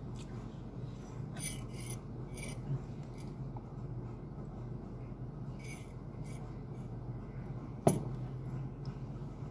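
Mouth sounds of a man eating and drinking: soft smacks and rubbing noises while he chews boiled egg and sips from a mug, over a steady low hum. One sharp knock about eight seconds in.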